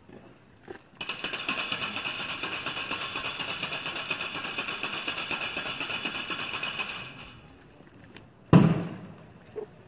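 Wooden ratchet rattle (raganella) cranked in a rapid, even clatter for about six seconds, stopping sharply; in Holy Week processions it stands in for the silenced church bells. Near the end a single loud thump rings out for about a second.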